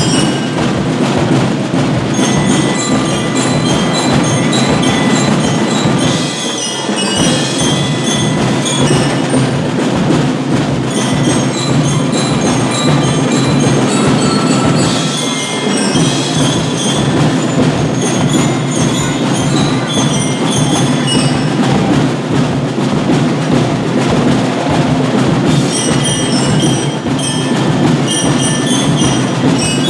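Brass-and-drum marching band (fanfarra) playing, with drums keeping a steady beat and bell-like glockenspiel notes ringing above. The low drums briefly drop out twice, a little after 6 seconds and near 15 seconds.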